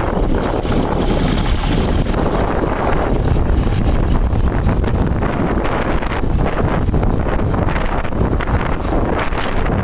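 Case 930 Comfort King tractor engine running as the tractor drives slowly and pulls away, with heavy wind buffeting on the microphone.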